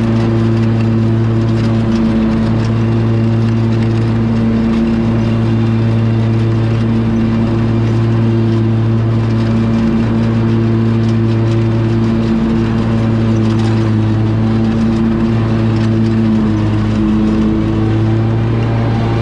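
Kubota 725 riding mower's gasoline engine running steadily at working speed as the mower drives over grass, a strong, even engine hum with a few brief dips.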